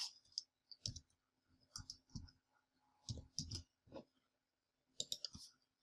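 Computer keyboard keys clicking faintly as a short code is typed: about ten scattered, irregular keystrokes.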